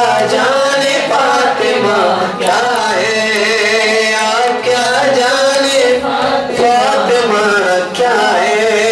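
A man chanting a devotional Urdu poem in praise of Fatima in a sung, melodic recitation: long, wavering held notes that rise and fall, phrase after phrase.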